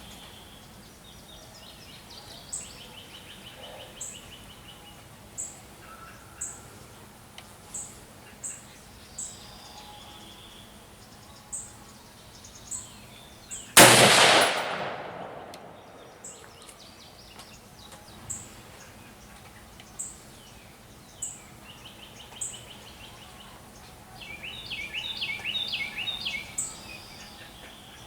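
A single shot from an M1A semi-automatic .308 rifle about halfway through, its report echoing away over a couple of seconds. Birds sing around it, with a short high chirp repeating about once a second.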